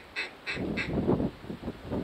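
Rapid, even series of short duck quacks, about three to four a second, with lower, louder quacks joining about half a second in.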